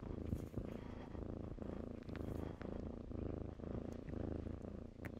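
Kitten purring close up, a steady low rumble that swells and dips every second or so.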